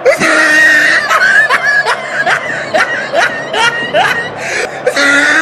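A cartoonish comedy sound effect: a run of quick rising squeals, about two or three a second, over a steady high tone.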